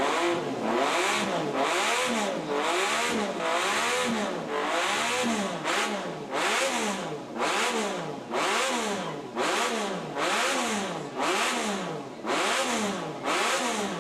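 Honda CBX air-cooled inline-six motorcycle engine being revved over and over in a steady rhythm, each throttle blip rising and falling back, about once a second.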